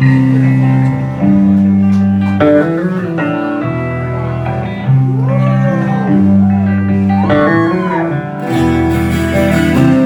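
Electric guitar played live through an amplifier: held chords that change every second or two, with single notes bent up and back down in pitch a few seconds in.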